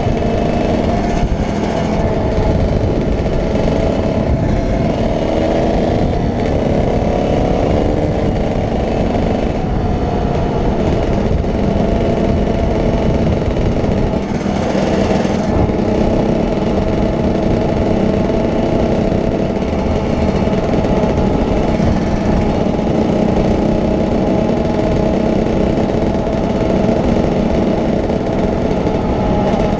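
Dirt bike engine running steadily at road speed, heard from the bike as it is ridden, its pitch rising and falling slightly with the throttle.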